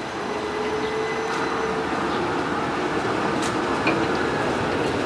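Tram rolling slowly past at close range on curved track, a steady running noise of wheels on rail that grows louder as it nears, with a faint steady whine in the first couple of seconds.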